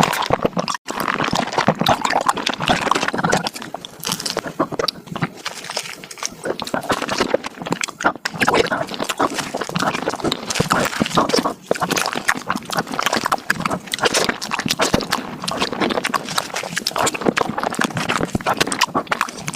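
Eating sounds of mango desserts sped up about fivefold: chewing and slurping run together into a fast, dense chatter of wet clicks and smacks, with a brief break about a second in.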